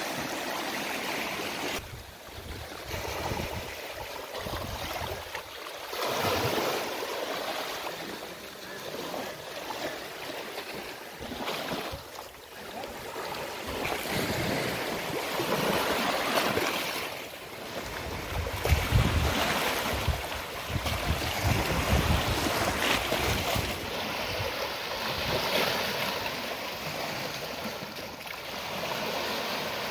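Small waves of the flooded Ganga washing and lapping against the muddy riverbank in uneven surges. From a little past halfway, wind buffets the microphone with a low rumble.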